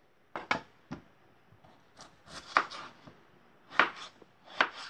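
Kitchen knife dicing peeled raw potatoes on a cutting board: sharp, irregular knocks of the blade going through the potato onto the board, coming in small clusters of two or three.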